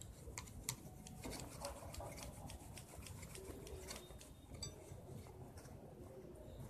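A rubber eraser rubbed back and forth over the contact pads of a TV remote's circuit board, a faint scratchy rubbing with many small ticks. It is scrubbing carbon off the button contacts so the buttons work again.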